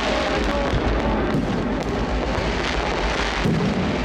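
A fireworks display going off: a dense, continuous run of bangs and crackles from bursting shells.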